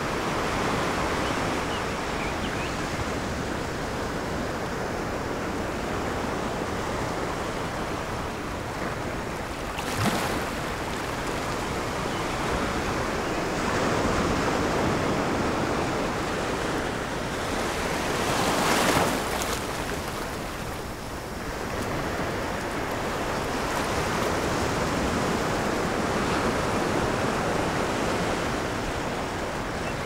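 Ocean surf: waves breaking and washing in as a continuous rush that swells and eases, loudest in a surge about two-thirds of the way through.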